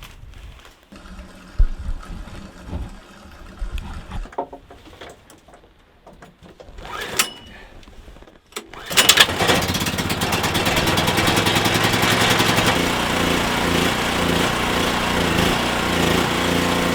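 Gasoline generator engine starting about halfway through, catching at once because it was preheated against the subzero cold, then running steadily with an even beat. Before it starts there are only a few scattered knocks.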